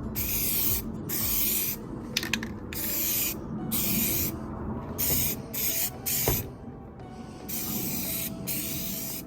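Rust-Oleum aerosol spray paint can spraying in about ten short bursts, each a hiss of under a second, as a second coat of paint goes on.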